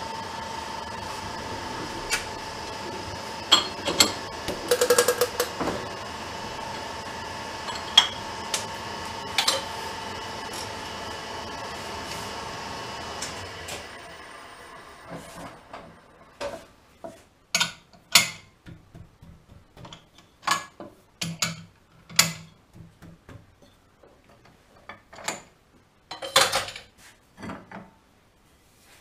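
Steady machine hum with a few sharp metallic clicks, which stops about halfway through. Then a run of sharp metallic clinks and knocks as the metal lathe's chuck is loosened with its T-handle key and the brake rotor is worked free of the jaws.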